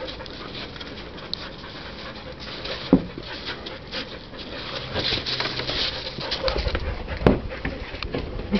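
Two Briard puppies play-fighting on gravel: the gravel scuffs and crunches under their paws. Two short dog vocal sounds stand out, about three seconds in and again near the end.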